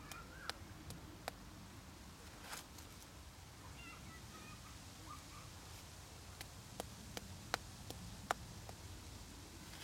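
Quiet sandbox play: soft scrapes and scattered small clicks of a plastic toy shovel digging in sand, several close together near the end, over a low steady rumble, with a few faint thin chirps.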